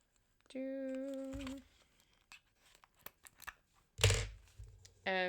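Product packaging being handled, with faint clicks and crinkles and a single sharp thump about four seconds in, the loudest sound. About half a second in, a steady hummed tone is held for about a second.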